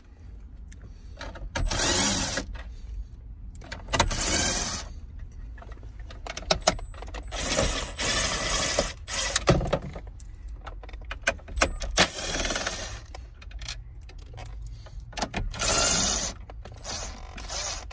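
DeWalt DCF813 12-volt cordless impact wrench hammering in several short bursts of about a second each as it backs out small dash screws.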